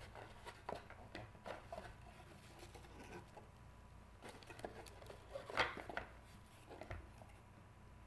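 Trading cards being handled and sorted by hand: a run of light taps, flicks and rustles, with one louder rustle about five and a half seconds in.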